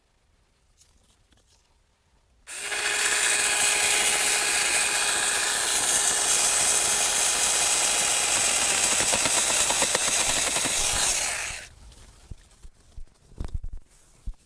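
Saker 4-inch 20 V cordless mini electric chainsaw starting about two and a half seconds in and running with a steady high whine for about nine seconds while cutting mulberry branches, then stopping abruptly. A few short knocks follow near the end.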